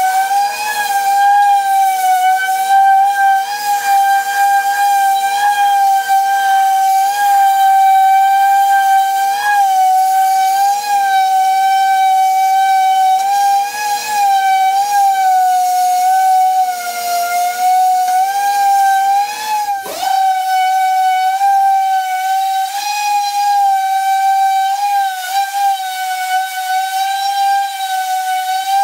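Electric hand sander running steadily with a high whine that wavers a little in pitch, sanding the cabinet's surfaces level. About twenty seconds in there is a click and a lower hum drops out while the whine carries on.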